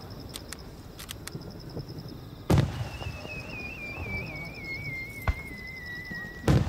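Aerial fireworks shells bursting with two loud bangs about four seconds apart and a smaller crack between them. In the gap a shell whistles as it climbs, a wavering whistle that slowly falls in pitch and cuts off at the second bang.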